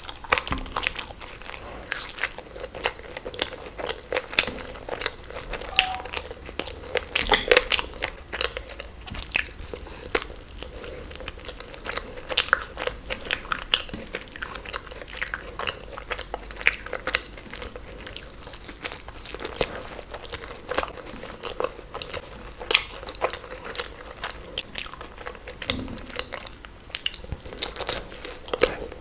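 Close-miked eating: repeated crunchy bites and chewing, an irregular run of sharp crackling clicks several times a second.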